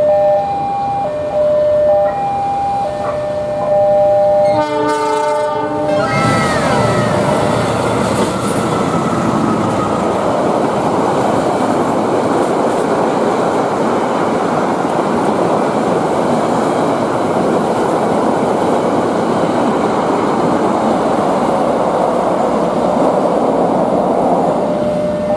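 Level-crossing warning bell alternating between two tones, then the CC 206 locomotive's horn sounds about five seconds in, its pitch dropping as it passes. After that comes the steady noise of the Argo Bromo Anggrek's coaches running by on the rails, and the crossing bell's two tones come back near the end.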